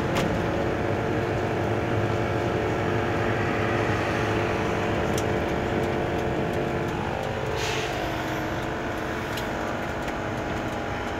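Engine and road noise of a moving vehicle heard from inside the cabin, a steady drone whose engine note drops a little about two-thirds of the way through as it slows.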